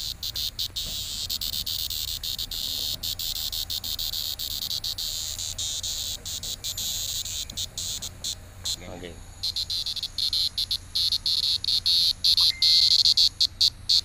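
Cicada held between the fingers, buzzing loudly: a high, rasping drone broken by many short gaps, getting louder and choppier about two-thirds of the way in.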